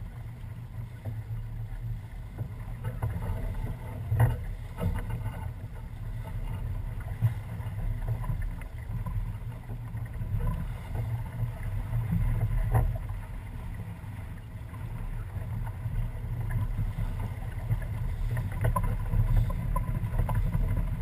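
Small sailboat under sail: a steady low rumble of wind on the microphone and water rushing along the hull. A few sharp knocks from the boat are heard along the way.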